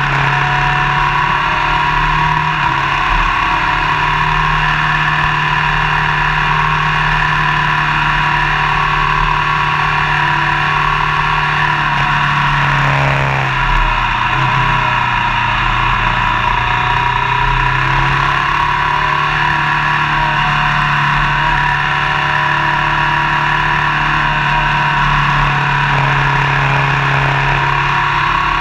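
Motorcycle engine running at a steady cruise, mixed with heavy wind and road noise. About halfway through, the engine note dips briefly and climbs back.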